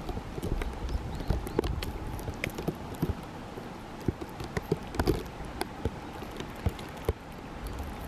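Irregular light taps, several a second, over a steady hiss: heavy wet snow striking the camera and the recordist's gear.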